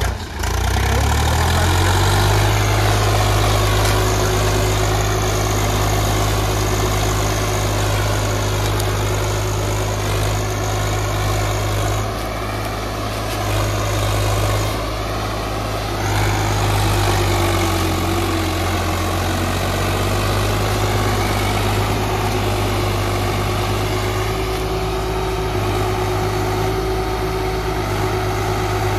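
Swaraj 744 XT tractor's three-cylinder diesel engine running steadily at low speed while pulling a trolley heavily loaded with sugarcane. Its note dips and recovers a couple of times about halfway through.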